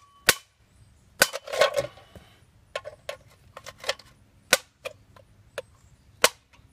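Hammer blows driving a hand-held punch into an aluminum soda can, testing the strength of a brazing-rod patch: about a dozen sharp metallic cracks at an uneven pace, some louder than others.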